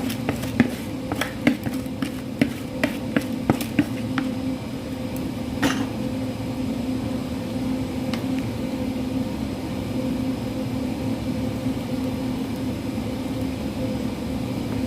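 A utensil knocking and scraping against a cooking pot of rice and chicken, a quick run of sharp clicks over the first four seconds and two more single knocks a little later, over a steady low hum.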